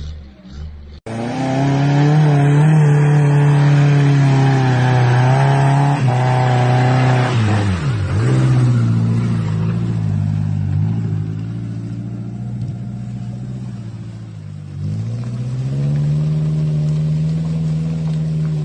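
A vehicle engine labours loudly and steadily off-road. Its pitch drops sharply about eight seconds in and again near the end, then picks back up as it is revved.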